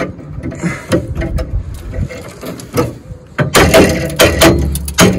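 Ratchet wrench clicking while working a rusted tow bar bolt: a few scattered clicks, then a quick run of loud clicks, about six or seven a second, starting about three and a half seconds in.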